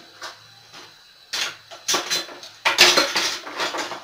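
A metal spoon clinking and scraping against an enamel pot as sugar syrup is stirred: a few sharp clatters, the loudest run about three seconds in.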